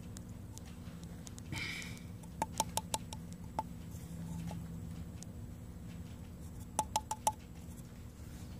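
Light, sharp clicking taps of a plastic cartridge of exothermic weld powder knocked against a Cadweld graphite mold to empty it, in two quick runs: about five taps a few seconds in, then four more near the end. A short rustle comes just before the first run.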